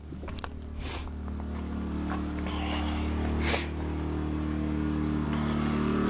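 Smarter Tools 2000-watt inverter generator with a Yamaha MZ80 engine running steadily under heavy load from an RV air conditioner on high cool and a microwave together. It grows louder over the first two seconds and is broken by a few brief knocks and rustles.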